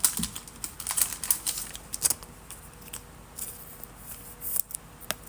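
Trading cards being handled during a pack break: an irregular run of light clicks and brief rustles as cards slide and tap against each other.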